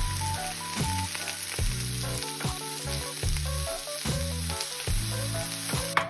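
Zucchini, button mushrooms and cherry tomatoes sizzling as they brown in a frying pan, turned with chopsticks. The sizzle cuts off suddenly near the end.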